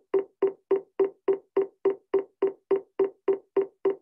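A played-back heart-rate sound at 210 beats per minute, the waking heart rate of a bat. It is short, evenly spaced knocking beats, about three and a half a second.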